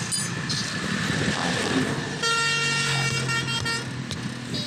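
A vehicle horn honks once, held steady for about a second and a half a little over two seconds in, over a steady background of road noise.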